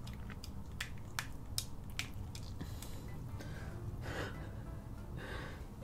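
Close-up eating sounds of a person chewing king crab meat dipped in cheesy seafood-boil sauce: scattered sharp wet mouth clicks and smacks, then two softer, longer sounds about four and five seconds in. Quiet background music runs underneath.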